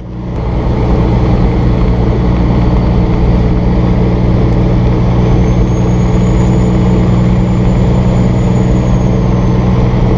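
Peterbilt 379 semi truck's diesel engine running steadily at highway speed, with road noise, fading in at the start. A faint high whine comes in around the middle and fades again.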